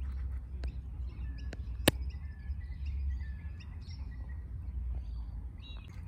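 Small birds chirping now and then over a low steady rumble, with one sharp click about two seconds in.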